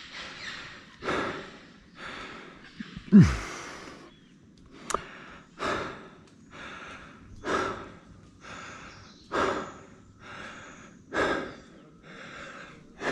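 A man breathing hard, one heavy breath about every two seconds, with a deep sighing exhale whose pitch falls about three seconds in: a tree climber winded from ascending a rope.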